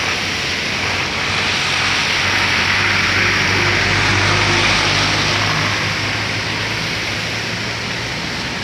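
Heavy rain falling on a flooded asphalt road, a steady hiss, with the low hum of a vehicle engine that grows louder about halfway through and fades near the end.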